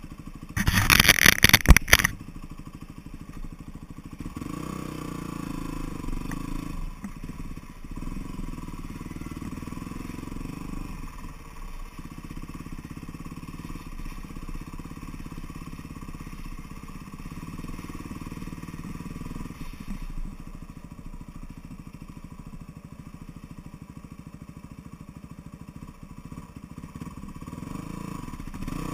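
Vehicle engine running steadily at low speed as it drives along a snowy track, heard through a camera mounted on the vehicle. A loud, short rattling burst in the first two seconds is the loudest sound.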